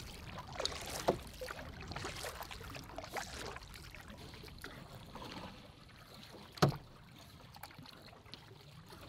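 Canoe paddling: the paddle dipping and pulling through the water, with splashing, dripping and small knocks. About two-thirds of the way in there is one sharp, louder knock.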